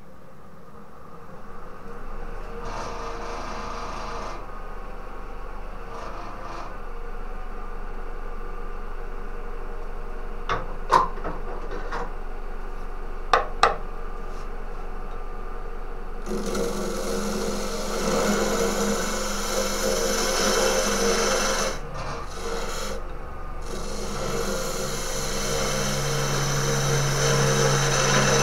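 Wood lathe spinning a green Japanese ornamental cherry log end-on while a turning tool cuts into the end grain. A few brief cuts and three sharp knocks come first, then from about halfway the tool bites in steadily and the cutting grows louder toward the end.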